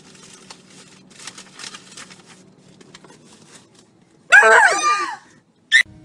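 Faint rustling, then about four seconds in a loud, high-pitched scream lasting about a second, its pitch swooping up and down; a short sharp sound follows just before the end.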